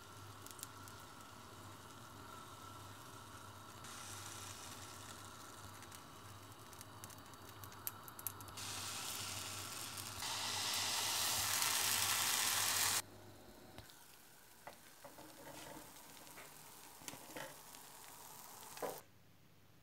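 Small rounds of pancake batter sizzling in a hot nonstick pan. The sizzle grows louder in steps and is loudest for a few seconds past the middle, then drops abruptly to a quieter stretch with scattered light clicks.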